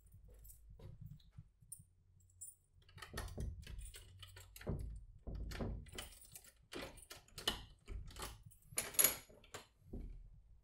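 A bunch of keys jangling and a key clicking in the lock of a wooden front door as it is unlocked, a run of rattles and clicks from about three seconds in, loudest near the end.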